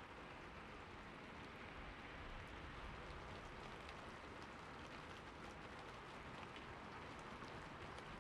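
Light rain falling steadily: a soft, even hiss with scattered small drop ticks.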